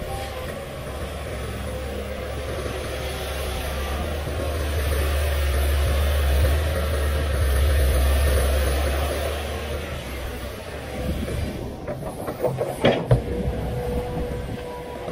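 Komatsu PC500LC hydraulic excavator's diesel engine running under load, growing louder to a peak midway as the machine swings and lifts, then easing. Near the end a few sharp knocks as the bucket works close by.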